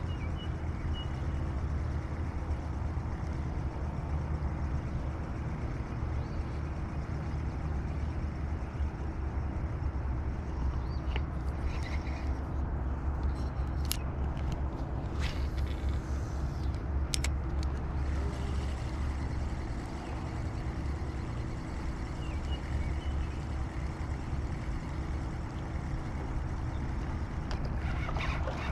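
Steady low rumble with a faint steady hum underneath, and a few sharp clicks around the middle.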